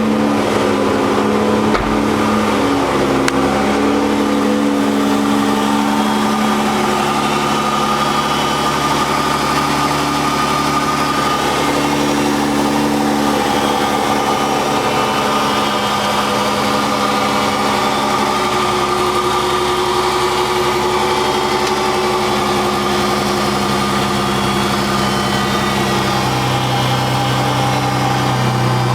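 Dodge 3.5-litre V6 idling steadily, running without the loud valve-train ticking now that its faulty rocker arm shaft has been replaced.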